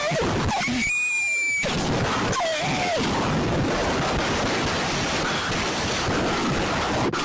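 Harsh, loud static hiss of a mock emergency alert alarm, broken by a few short warbling tones and one brief steady high beep about a second in.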